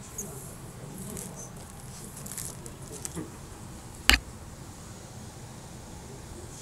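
Paper photo prints handled with gloved hands: soft rustling in the first three seconds, then a single sharp knock about four seconds in.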